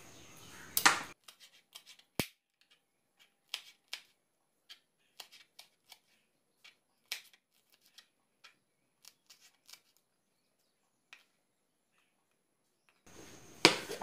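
Kitchen knife cutting on a plastic chopping board: scattered sharp clicks and taps, with a louder knock about a second in and another near the end.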